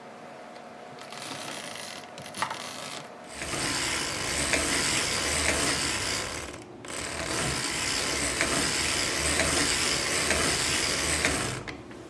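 Hand-cranked circular sock machine with a 72-slot cylinder knitting rounds: the needles clatter steadily through the cams as the crank turns. The clatter starts about three seconds in after some light handling clicks, pauses briefly about seven seconds in, and stops just before the end.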